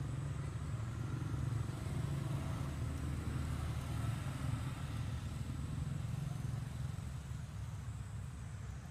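A steady low engine rumble, like a motor vehicle running, with no sudden sounds.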